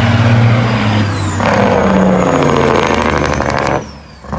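Semi truck's diesel engine running hard as the truck goes by, with a high whistle falling steadily in pitch over the engine drone. The sound drops away suddenly near the end.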